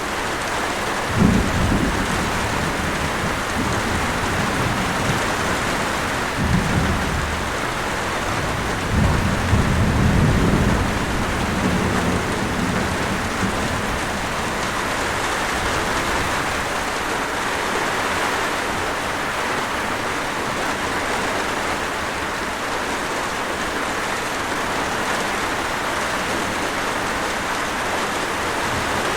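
Steady light rain with distant thunder rumbling three times in the first half: a sudden, loudest roll about a second in, a shorter one a few seconds later, and a longer rolling rumble near the middle, after which only the rain continues.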